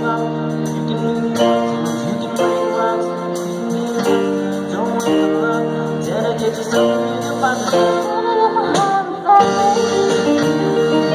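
Live amateur band playing a song on keyboard, electric guitar and drums, with singing over it.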